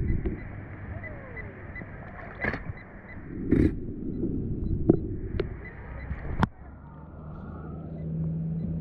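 Water sloshing and splashing close to the camera, with several sharp knocks and clicks from the handled gear. About seven seconds in, the splashing drops away and a low steady hum takes over.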